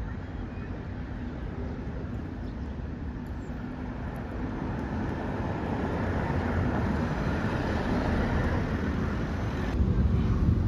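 Road traffic noise from passing cars, a steady noisy rumble that grows louder through the middle. It changes abruptly to a louder low rumble near the end.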